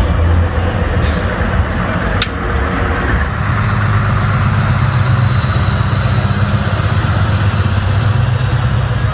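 Heavy trucks' diesel engines running as they drive slowly past, a steady low drone that grows louder about three seconds in. There is one brief sharp sound a little after two seconds in.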